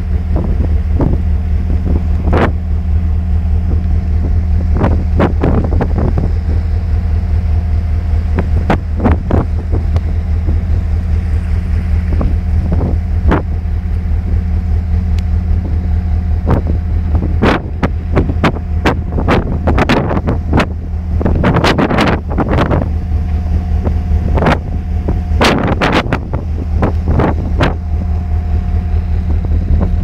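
Steady low drone of a ship's engine underway. Irregular sharp crackles and knocks come over it, thickest in the second half.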